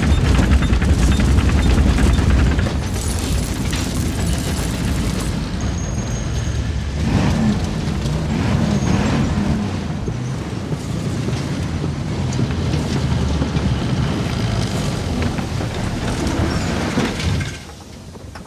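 Pickup truck driving hard on a dirt road: a continuous loud rumble of the engine and tyres churning through loose dirt, which drops away about a second before the end as the truck stops.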